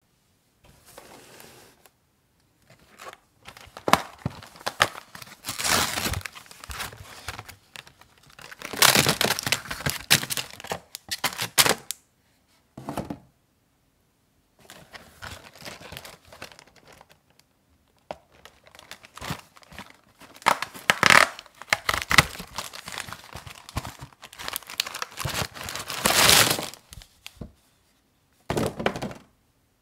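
Cardboard snack boxes being torn open by hand, and the individually wrapped snacks in crinkly plastic and foil packets rustling as they are tipped out onto a pile. The sound comes in irregular bursts with short pauses between them.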